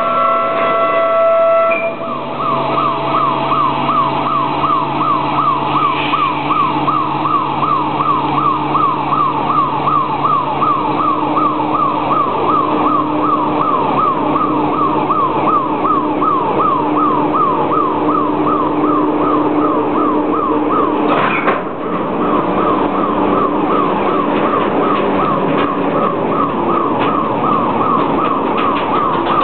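A siren cycling in fast rising sweeps, two to three a second, starting about two seconds in, over the steady low running of a switching locomotive's engine.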